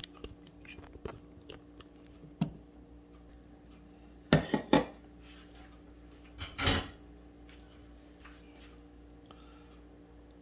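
Utensils and dishes clinking while canned dog food is handled: a few light clicks, then two sharp clinks a little after four seconds in and a short scraping clatter about two seconds later.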